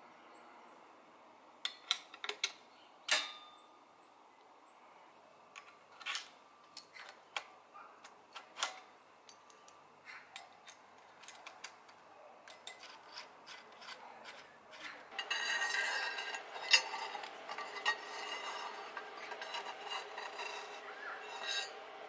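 Bicycle parts being fitted by hand: metal headset, stem and handlebar pieces clicking and knocking against each other and the tools, a few sharp knocks in the first half, then a longer stretch of rubbing and clattering from about two-thirds of the way in.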